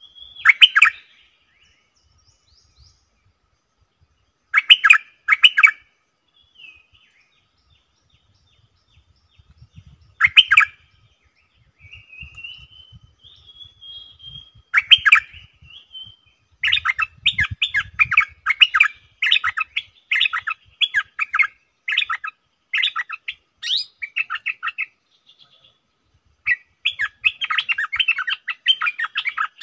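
Caged decoy stripe-throated bulbul calling: loud, short bubbly phrases every few seconds, then from about halfway a fast run of chattering notes that pauses briefly and starts again near the end. A fainter rising whistle from another bird comes partway through.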